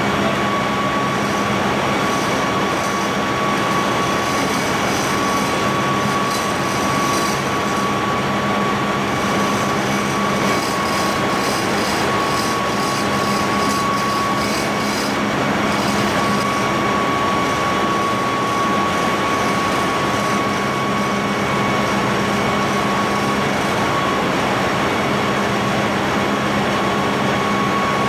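Ship's engine-room machinery running: a loud, unchanging rumble with a steady high whine and a low hum held throughout.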